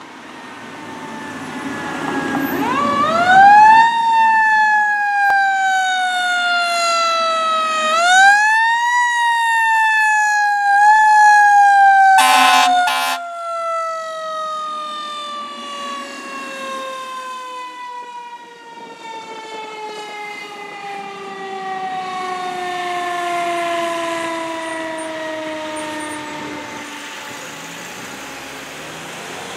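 Fire engine's mechanical siren winding up, pushed up again twice, then slowly winding down over about fifteen seconds. Two short air horn blasts sound about twelve seconds in.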